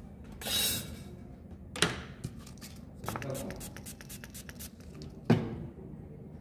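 Handling noises on a workbench: a short rustle, a run of light clicks and taps, and one sharper knock near the end.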